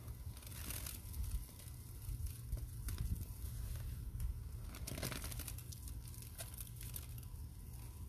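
Hands squeezing and squishing a wet powder paste, giving soft crackly squelches that swell about a second in, around three seconds and around five seconds. A steady low rumble of outdoor noise runs underneath.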